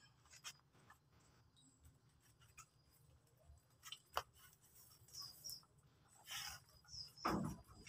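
Mostly quiet, with a few faint, scattered knocks and scrapes as a truck's heavy dual rear wheels are pulled off the hub; the loudest, a short scrape, comes near the end.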